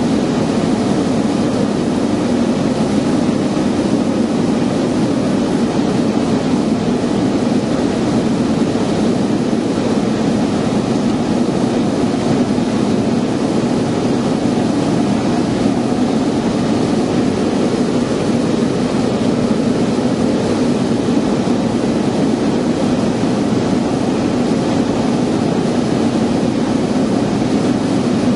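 Piper Turbo Arrow in flight, its turbocharged six-cylinder Continental engine and propeller heard from inside the cabin as a loud, steady drone with no change in pitch.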